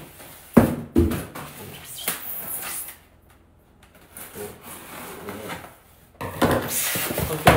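A cardboard shipping box being handled and opened. Two sharp knocks come about half a second and one second in, then rustling and rubbing of cardboard, with a louder, longer scrape near the end.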